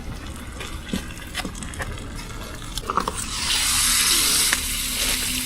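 Food frying in a pan on a camp stove, with a few light clicks and knocks of utensils, then a loud sizzle that starts about three seconds in as more food hits the hot pan.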